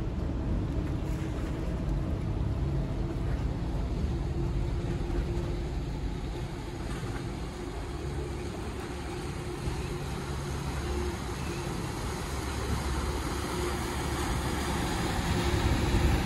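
River-class catamaran ferry's engines running steadily as it pulls away from the wharf, growing louder near the end as it powers off and churns up its wake.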